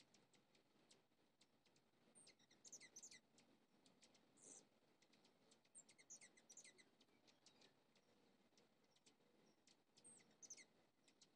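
Faint hummingbird calls: a scatter of sharp, high chip notes, with bursts of rapid high chattering about two and a half seconds in, at about six to seven seconds, and again near ten seconds.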